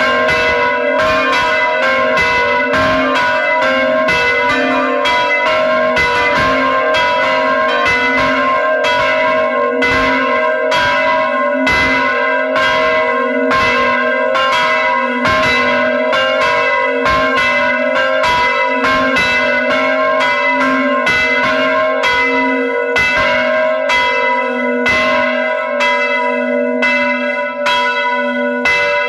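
Church bells rung by pulling their ropes, struck over and over in quick succession, their tones ringing on and overlapping into a continuous peal.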